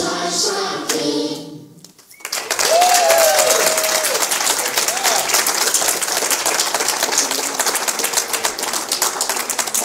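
A sung Christmas number ends on its last notes, then after a short gap a church congregation breaks into steady applause, with a few short cheers in the first seconds of it.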